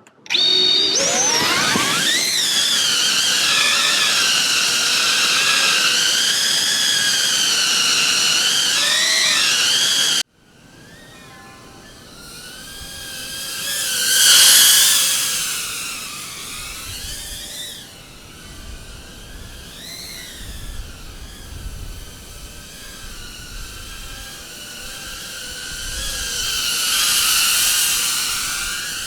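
FPV cinewhoop quadcopter's electric motors and propellers whining, with several tones wavering up and down with the throttle. The sound starts suddenly, then cuts off abruptly about a third of the way in. After that the drone is heard flying back and forth, swelling loud twice as it passes close by.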